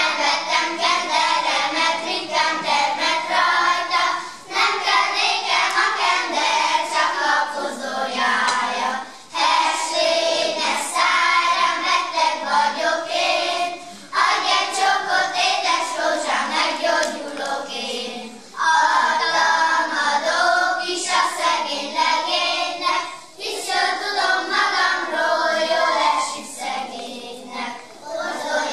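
A group of young children singing a folk song together, in long phrases broken by short pauses for breath about every four to five seconds.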